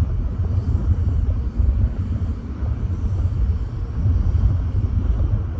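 Strong wind buffeting the microphone, an unsteady low rumble that rises and falls in gusts.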